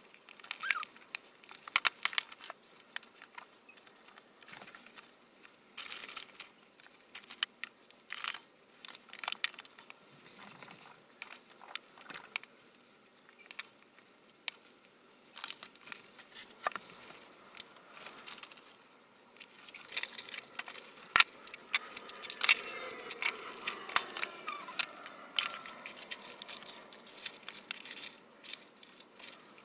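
Hands scooping, dropping and pressing loose, moist substrate into plastic tubs: a run of crackling, rustling and short sharp clicks of plastic being handled, busiest about two-thirds of the way through.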